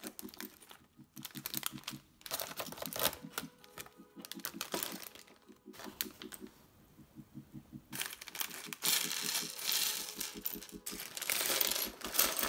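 Clear plastic bags of LEGO pieces crinkling and rustling as they are handled and pulled from the box, in irregular bursts with two longer stretches near the end. In the last second or so a bag of pieces is tipped out, the small plastic bricks rattling onto the table.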